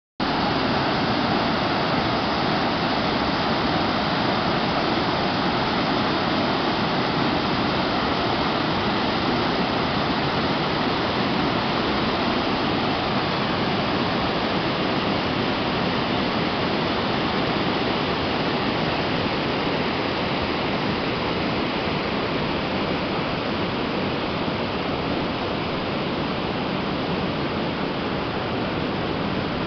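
Water of a small waterfall cascading over rock slabs, a steady rush of white water, a little softer near the end.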